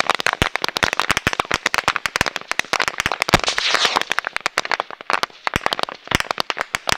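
Heavy small-arms gunfire: rapid, overlapping shots from several guns, many a second. The firing is densest in the middle and thins out near the end.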